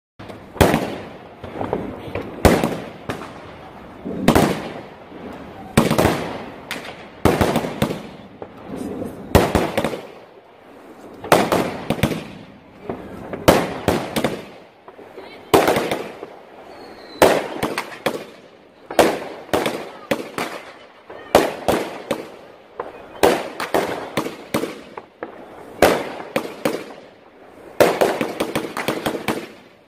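Consumer aerial fireworks bursting one after another, a sharp bang every one to two seconds, each trailing off as it dies away. Near the end the bangs come in a rapid, dense run of cracks.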